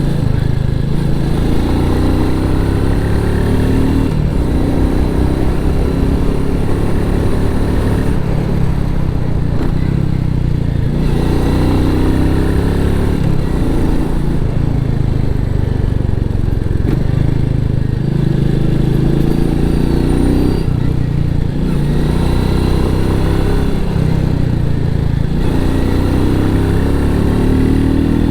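Royal Enfield Meteor 350's single-cylinder engine through its stock exhaust, ridden under way. The engine note climbs in pitch and drops back again and again every few seconds as the bike accelerates and shifts or rolls off the throttle.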